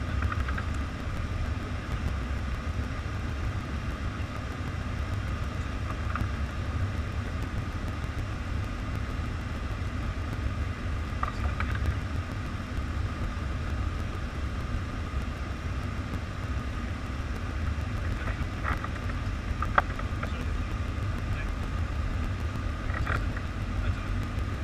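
Steady flight-deck noise of a Boeing 747 in descent: a low rumble of airflow and engines with a faint high steady tone over it. A few faint brief clicks, one sharper about twenty seconds in.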